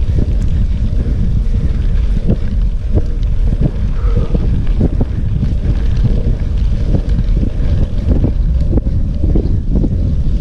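Wind buffeting the camera microphone of a mountain bike riding fast on a rough dirt track, a steady low rumble with frequent small knocks and rattles from the bike and tyres going over the bumpy ground.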